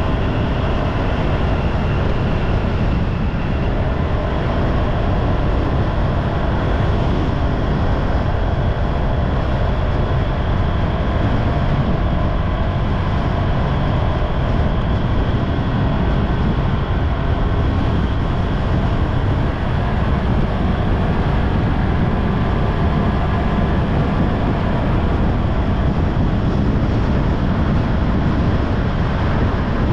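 Steady road-vehicle noise: engine and tyre rumble, deep and unbroken, with no sudden events.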